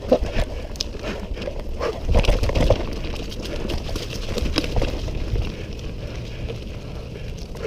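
Mountain bike rolling fast down a dirt forest trail: the tyres rumble over the ground, with scattered clicks and knocks from the bike rattling over bumps. Wind rumbles on the microphone, loudest a couple of seconds in.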